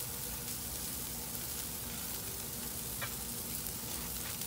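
Marinated chicken breasts sizzling steadily on the hot grates of a gas grill, the olive-oil marinade spitting as it cooks.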